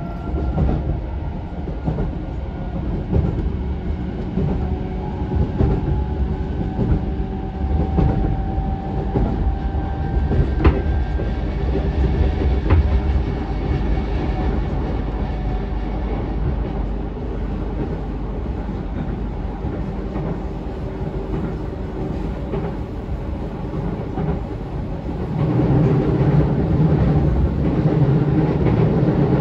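Running sound of a JR E233-6000 series electric commuter train heard from inside the passenger car: a steady rumble of wheels on rail with a faint steady whine. A couple of sharp clicks come near the middle, and the rumble grows louder over the last few seconds.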